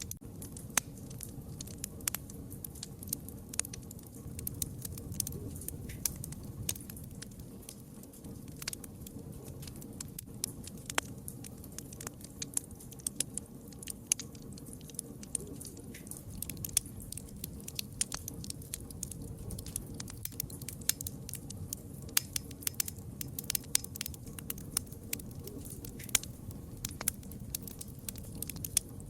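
Wood fire crackling: irregular sharp pops and snaps from the burning logs over a steady low rumble of the flames.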